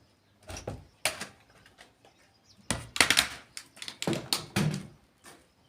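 A run of irregular knocks and thuds, like objects being handled and set down, with the loudest cluster about three seconds in.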